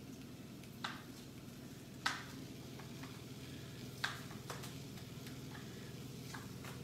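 Kitchen knife slicing a cooked chicken breast on a plastic chopping board: a handful of sharp knocks as the blade hits the board, a second or two apart, over a steady low hum.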